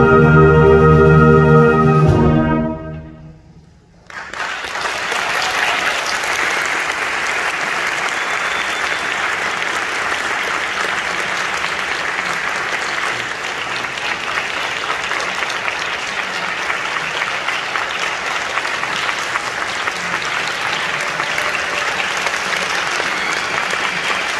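Student concert band, brass and woodwinds, holding a final chord that dies away about three seconds in. After a short hush the audience starts applauding about four seconds in and keeps up steady clapping.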